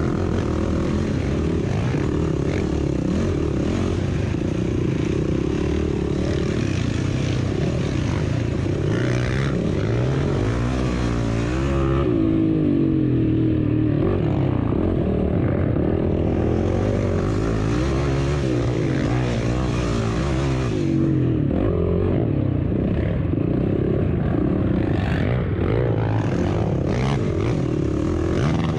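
Racing vehicle's engine running hard, heard onboard, its pitch rising and falling again and again as it accelerates and backs off.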